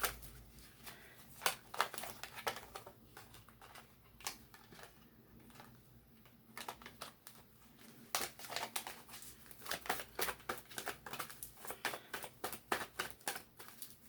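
Tarot cards being shuffled and handled: a run of quick flicks and taps, sparse in the middle and coming thick and fast from about eight seconds in.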